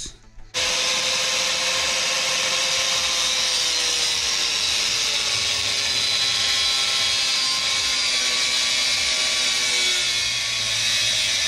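Angle grinder with a cutting wheel cutting through the exhaust, starting about half a second in and running steadily; its whine sinks slightly in pitch as the wheel bites into the metal.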